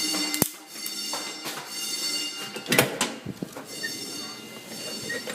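Building fire alarm ringing steadily in the background, a set of high tones, with a sharp knock about half a second in, a heavier thud near three seconds and another knock at the end.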